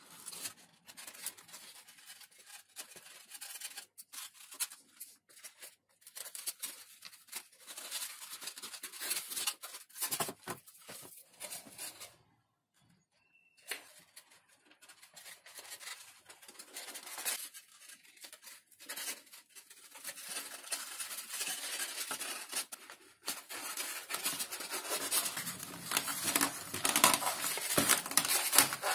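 Hands working XPS foam and thin sheet parts of a foam model airplane fuselage, making scratchy rubbing and rustling, with a brief silent break about twelve seconds in. Sandpaper on a sanding block then rubs over the edge of the sheet, growing louder near the end.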